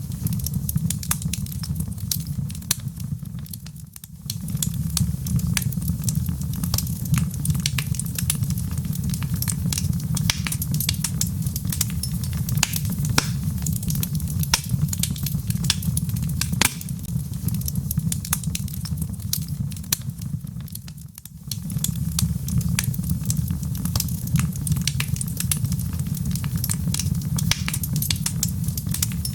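Wood fire crackling, with frequent sharp pops over a steady low rumble; the sound dips briefly twice.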